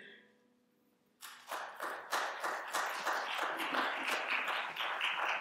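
The last sung note fades out, and after about a second of quiet, applause breaks out and keeps going steadily.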